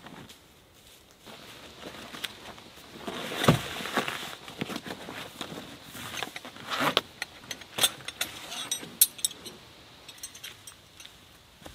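A canvas bag of tent stakes being unrolled and handled, with rustling and sliding of the canvas, then steel tent stakes clinking against each other in a quick run of sharp metallic clicks near the end.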